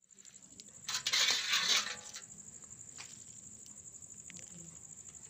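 Crickets chirping in a steady, fast-pulsing trill. About a second in, a loud rustling, crunching handling noise lasts about a second, followed by a few faint clicks.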